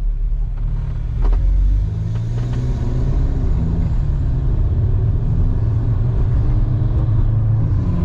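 Audi S3 (8Y) 2.0-litre turbocharged four-cylinder with an aftermarket 4-inch downpipe, heard from inside the cabin accelerating with its exhaust valves open in dynamic mode. The engine note rises in pitch as the automatic gearbox shifts itself just above 3,000 rpm.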